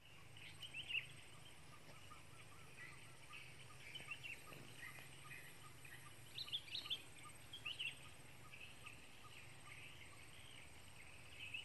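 Faint outdoor ambience of birds chirping and calling in short bursts, over a steady high-pitched drone and a low hum.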